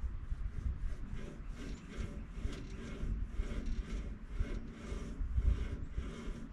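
Repeated rubbing or scraping strokes, about three a second, from hand work on the sawmill's blade guide bearing assembly.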